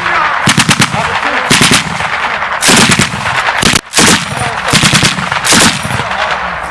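Belt-fed 7.62 mm machine guns firing short bursts of a few rounds each, about six bursts, over steady firing from other guns along the range.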